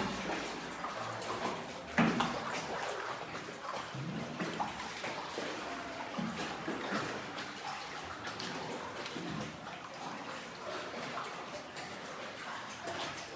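Water sloshing and splashing against a small rowed boat as it moves through a cave tunnel, with a sharp knock about two seconds in.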